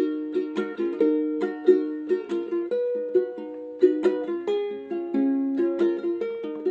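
Tenor ukulele playing strummed chords on its own, with sharp, regular strokes over ringing chords that change every second or so.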